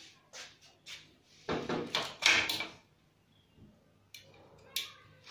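Steel grill door being worked by hand: a cluster of metal knocks and rattling about a second and a half in, then two short clicks near the end.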